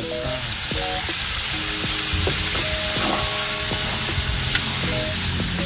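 Diced raw pork sizzling in hot oil in a wok as it is tipped in, the frying getting louder as the meat lands, then stirred with a metal spoon.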